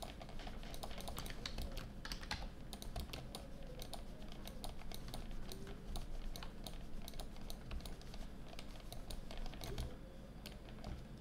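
Quick, irregular clicking and tapping of a computer keyboard and mouse, several clicks a second, over a faint steady low hum.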